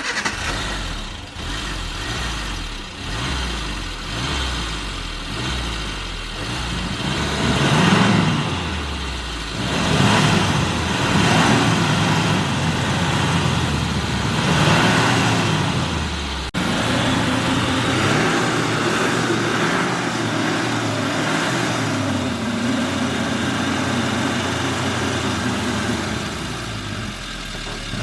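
Suzuki Samurai's engine revving up and dropping back again and again as it tries to drive out of deep snow it is stuck in. About halfway through the sound breaks off abruptly, and the engine then runs more steadily under load.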